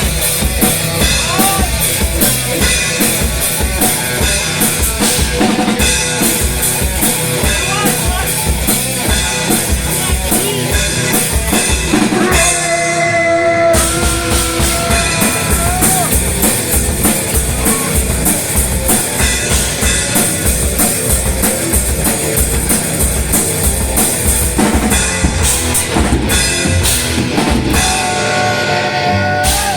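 Live stoner rock band playing: distorted guitar, bass and drum kit driving a steady kick-drum beat. About twelve seconds in, the drums drop out for a moment while the guitar holds sustained notes, then the full band comes back in.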